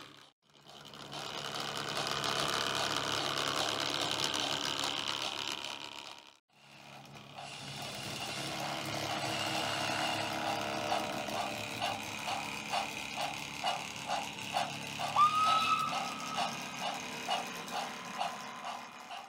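Model steam train running on the layout: a steady mechanical whir from its motor and wheels that drops away briefly twice, then settles into a regular beat of about two to three pulses a second. A short rising tone sounds about three quarters of the way through.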